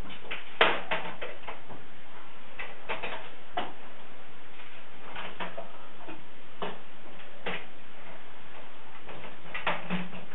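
Metal clicks and clunks of a Brompton folding bicycle's hinges, clamps and latches being worked by hand, the loudest a little under a second in and the rest scattered irregularly after it.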